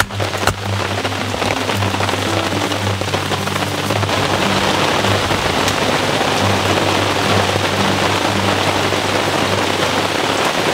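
Steady rain falling in a continuous hiss, with low held tones droning underneath.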